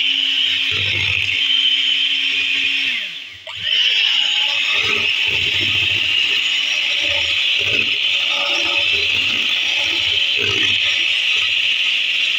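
Electric hand mixer running, its beaters whisking yogurt in a bowl, with a steady motor whine and irregular low knocks. About three seconds in the motor winds down and stops, then starts again at once and runs on.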